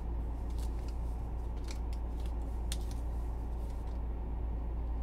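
Scattered light clicks and rustles from handling a red plastic Solo cup of salted cornmeal, over a steady low hum.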